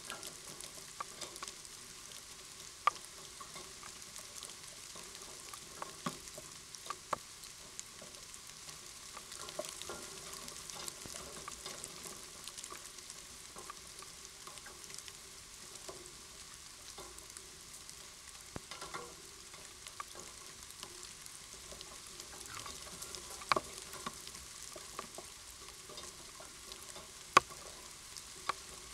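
Steady crackling hiss of rain pattering and dripping on leaves, with scattered sharp clicks of drops, a few of them louder, the loudest near the end.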